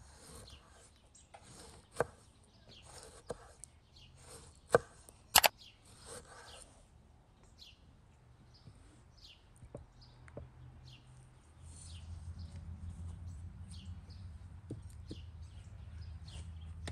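Kitchen knife slicing tomatoes on a wooden tree-trunk cutting board, the blade knocking the wood every second or so, loudest about five seconds in, with small birds chirping throughout. From about twelve seconds in, a low steady hum joins.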